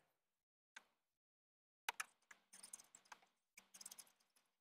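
Faint, irregular clicks and scraping of long-nose pliers gripping and wiggling the air box's retaining rod: a few single clicks, then two bursts of rapid clicking about two and three and a half seconds in.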